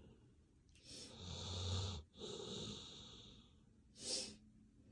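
Dog snoring in its sleep: a long drawn-in breath with a low buzz about a second in, a softer breath out, then a short sharp puff of breath near the end.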